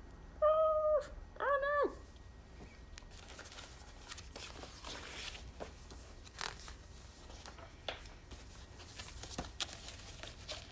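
Two short high-pitched vocal calls in the first two seconds, the second rising and then falling. After them come several seconds of paper rustling and light clicks as a picture book's pages are handled and turned.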